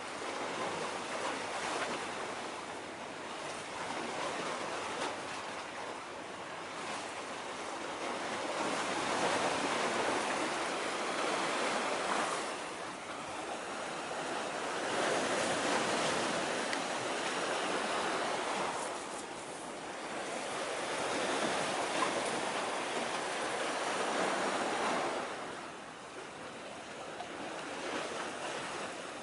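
Sea waves washing against a breakwater's concrete armour blocks, a steady hiss that swells and eases every five or six seconds.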